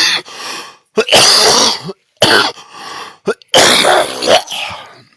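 A man coughing and clearing his throat: a series of loud, harsh bursts, the longest about a second in and again about three and a half seconds in.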